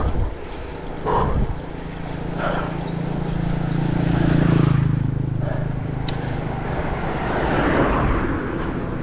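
Wind and road rumble on an action camera's microphone while riding a mountain bike, with a motor vehicle's engine growing louder and passing about four to five seconds in.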